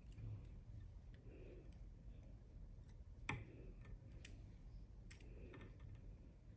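Faint, scattered small clicks and ticks from hands handling a bobbin and thread at a fly-tying vise, with one sharper click a little past the middle.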